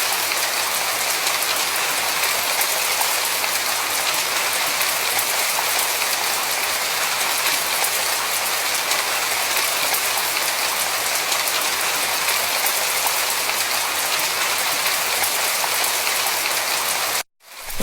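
Steady rain falling, a dense, even hiss. It fades in at the start and cuts off abruptly near the end.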